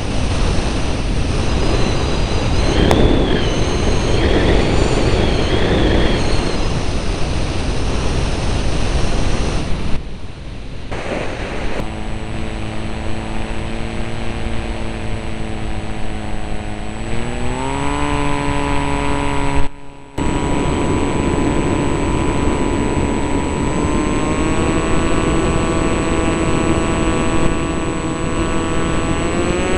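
Aircraft engine heard on board, with a rush of wind at first, then a steady engine drone whose pitch rises twice. The sound breaks off abruptly twice along the way.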